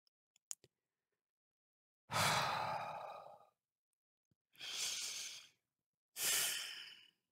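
A person breathing out deeply into a close microphone three times, long sigh-like exhales that each start strong and fade away. A small click comes just after the start.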